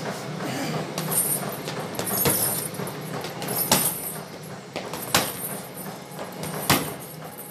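Boxing gloves striking a hanging heavy bag: about five sharp thuds, roughly every second and a half, with sneakers moving on a wooden floor between them.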